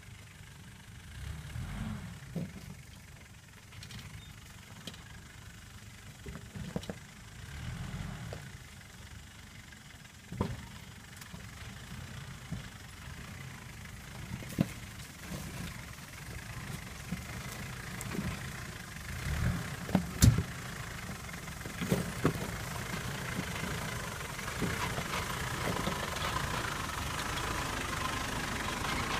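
Four-wheel-drive pickup truck crawling slowly over a rough, rocky track: a low engine rumble broken by clunks and knocks as the wheels and suspension go over rocks, the loudest knocks about twenty seconds in. It grows louder over the last few seconds as the truck comes up close.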